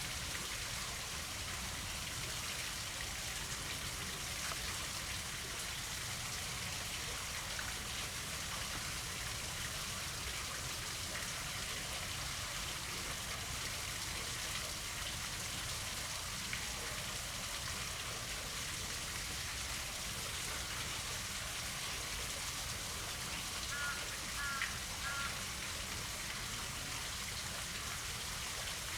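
Steady noise of falling rain, with a brief cluster of faint short chirps about 24 seconds in.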